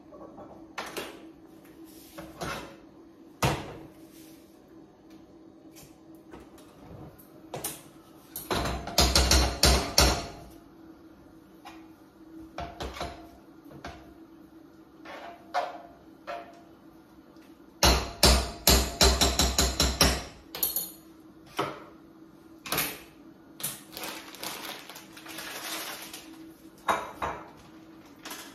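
Spatula knocking and scraping in a frying pan as minced meat is broken up and stirred, in two bursts of rapid strikes, about nine and eighteen seconds in, with scattered single knocks between. A steady low hum runs underneath.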